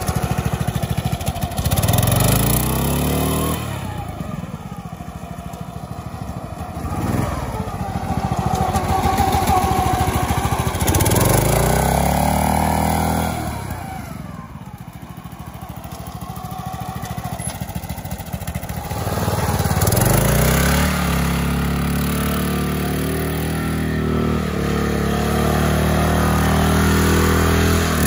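Gilson go-kart's small gasoline engine running under way, revving up and easing off several times, then holding a steadier speed over the last several seconds.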